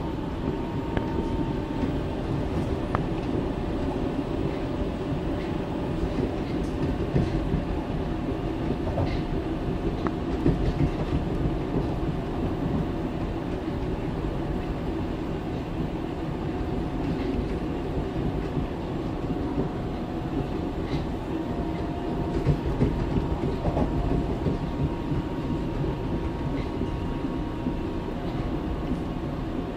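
Berlin U-Bahn F79 subway car running at speed between stations, heard from inside: a steady rumble of wheels on rail with faint steady tones and occasional short clicks over the track.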